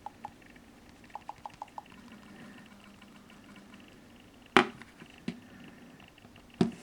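A run of soft ticks, then a few sharp clicks or knocks, the loudest about halfway through, over a faint steady hum.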